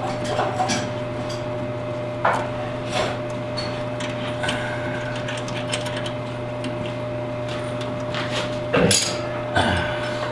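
Scattered knocks and clunks of equipment being handled and taken apart, a louder cluster near the end, over a steady electrical hum.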